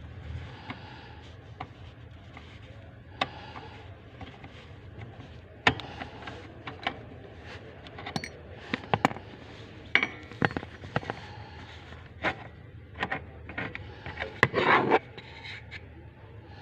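Hand tools and metal parts of an engine being worked on: scattered sharp clicks and knocks, with a short scraping sound near the end. The engine is not running.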